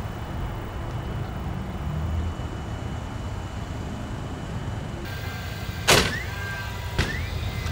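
Steady low rumble, with two sharp bangs about a second apart near the end, each followed by a short metallic ring.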